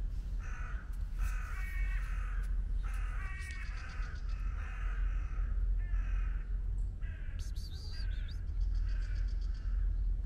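A bird giving a series of harsh calls, about nine in ten seconds, with a brief higher chirp about three-quarters of the way through, over a steady low rumble.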